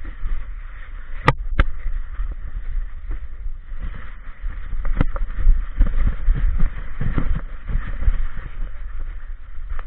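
Handling noise from an action camera strapped to a walking dog: a low, uneven jostling rumble and muffled rustle as it moves on the dog's back, with sharp clicks, two close together about a second in and another about five seconds in.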